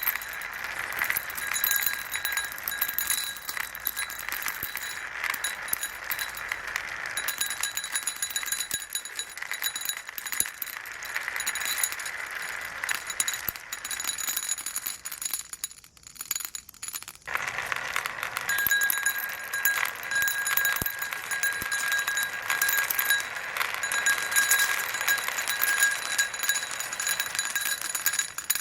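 Many marbles rolling and clicking against each other and down a marble run track, a continuous clatter with a ringing rolling tone. It briefly falls away about halfway through, then picks up again.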